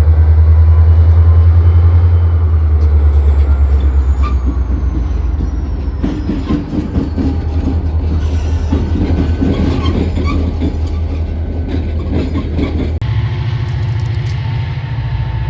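Diesel freight locomotive moving past close by: a loud, pulsing low engine rumble, then rattling and clanking of wheels and cars on the rails. Near the end the sound cuts abruptly to a steadier low hum.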